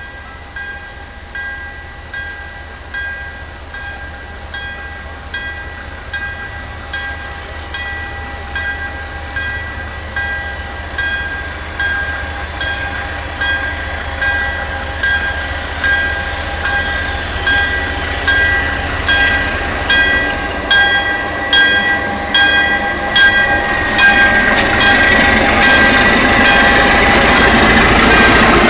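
An MLW RS-23 diesel locomotive draws near with its bell ringing about once a second, getting steadily louder. The engine's rumble builds under it, and in the last seconds sharp clicks from the wheels come in as the locomotive and coaches reach the listener.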